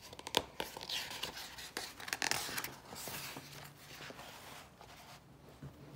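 Pages of a hardcover picture book being turned by hand: paper rustling and sliding, with a few light taps, busiest in the first three seconds.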